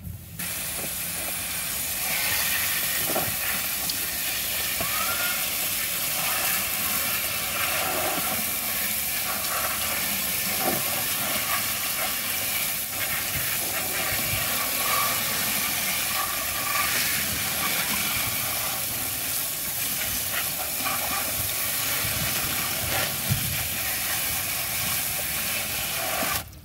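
Steady hiss of a jet of water from a handheld spray nozzle striking plastic toys and spattering into a plastic tub. It cuts off abruptly near the end.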